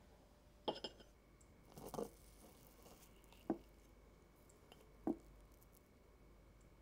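A metal fork on a ceramic plate, cutting into a slice of glazed lemon pound cake. There is a sharp clink under a second in and a short soft scrape of the fork through the cake around two seconds. Two more single clinks follow, the fork striking the plate.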